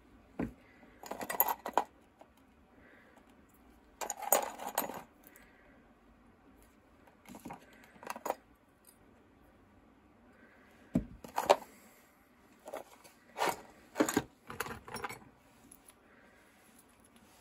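Small metal saddle-clamp parts, nuts and washers clinking against each other and the plastic tray as they are picked out of rust-remover liquid, in several short bursts of clinks.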